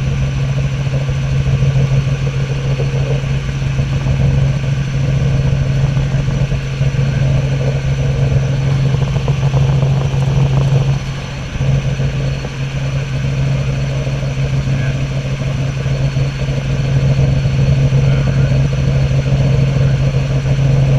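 Robinson R44 helicopter in flight, its six-cylinder Lycoming piston engine and rotors making a loud, steady drone heard from inside the cabin. The drone dips briefly a little past the middle, then runs steady again.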